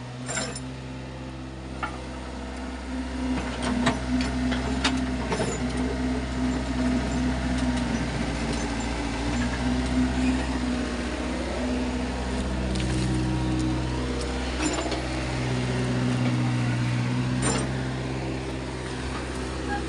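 Kobelco mini excavator's diesel engine running steadily while it digs, with scattered sharp knocks and scrapes as the bucket hits stones in hard, clumped soil.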